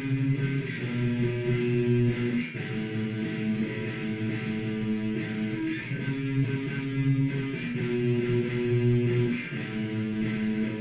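Instrumental guitar piece, held chords changing every second or two, recorded through a phone's microphone with poor sound quality.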